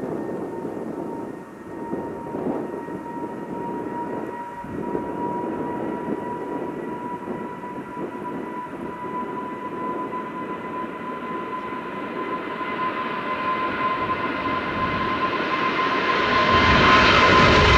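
Departing widebody jet airliner's engines: a steady whine over a broad rumble, growing louder in the last few seconds as the aircraft draws near.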